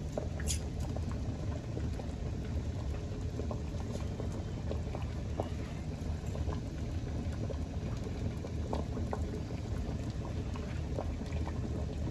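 Chicken broth boiling hard in a large enamel stockpot, bubbling and popping steadily. A single sharp click about half a second in.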